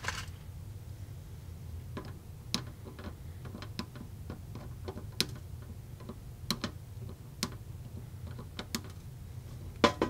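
Flush cutters snipping the leads of freshly soldered 2N3904 transistors on a circuit board: about ten sharp clicks at irregular intervals.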